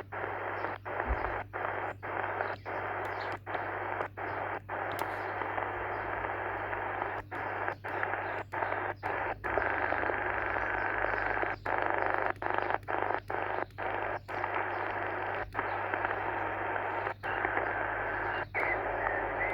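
Shortwave band noise from a Sony ICF-SW100 portable receiver tuned to the 20-metre amateur band: a steady hiss broken by many short silent gaps, the radio muting briefly as the tuning steps.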